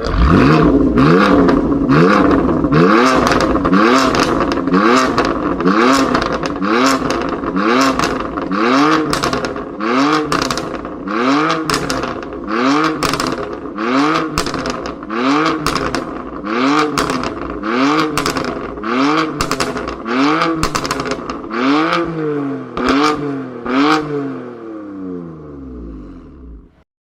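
BMW M car engine free-revving in a long run of quick throttle blips, about one a second, each rising and falling in pitch, dying away just before the end.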